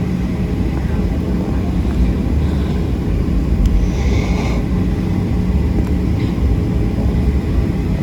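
Airliner jet engines running as a steady, loud low rumble, with a brief higher hiss about four seconds in.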